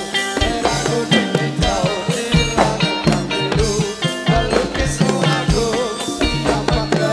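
Live music for a brondut troupe's performance: drums keep a steady beat of two to three strokes a second under a wavering melody line.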